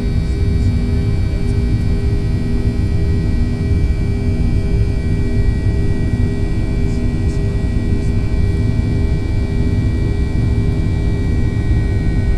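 Cabin noise inside a Boeing 737-800 climbing after take-off: its CFM56-7B turbofan engines and the airflow make a loud, steady rumble with a few held tones above it.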